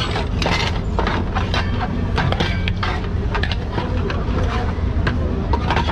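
Busy street noise: a steady low traffic rumble with frequent short clicks and knocks.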